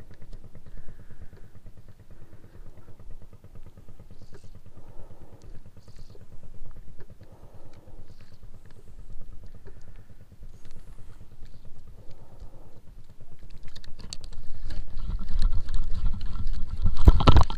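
A fishing boat's engine running steadily with a low, even throb. A louder rushing noise builds near the end.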